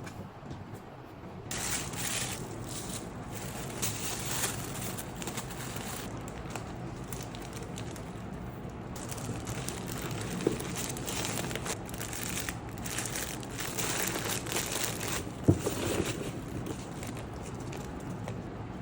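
Wrapping crinkling and rustling as it is handled by hand to pack a gift box, in uneven runs with two sharp clicks, the louder one near the end.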